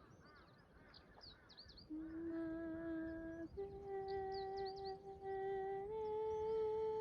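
An unexplained steady humming tone with overtones comes in about two seconds in. It holds one pitch, then steps up in pitch twice. Small birds chirp quickly over and around it.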